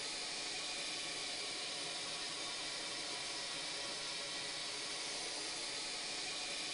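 Steady hiss of carbon dioxide gas flowing from a regulated cylinder through tubing into a glass tube.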